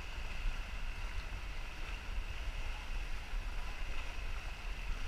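Small motorboat running steadily, with wind buffeting the microphone.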